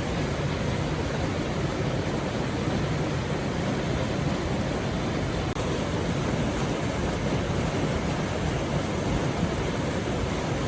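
River water flowing, a steady rushing noise that cuts out for an instant about halfway through.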